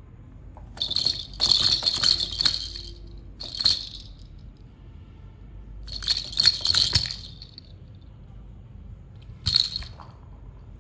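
Plastic toy rattle shaken in several short, separate bursts of bright rattling, the last one brief and near the end.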